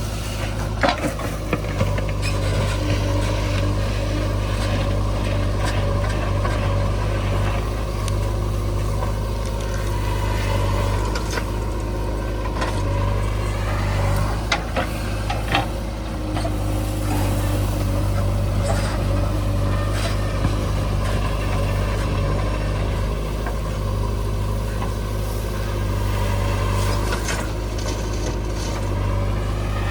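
JCB 3DX backhoe loader's diesel engine running steadily under work, with a pitch that rises and falls as the hydraulics are loaded. Occasional knocks and clanks come through over it.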